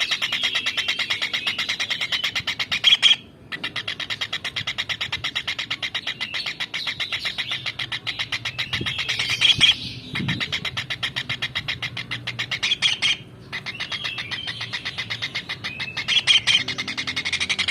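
Tengkek udang (a small kingfisher) calling in long, fast, rattling runs of high notes, broken by short pauses about three, ten and thirteen seconds in.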